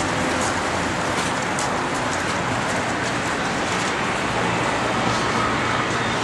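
Steady street traffic noise, an even wash of passing cars with no single vehicle standing out.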